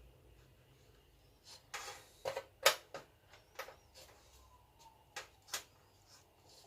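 Hands handling tools and parts at a workbench: a scattered series of sharp clicks and knocks, the loudest about two and a half seconds in.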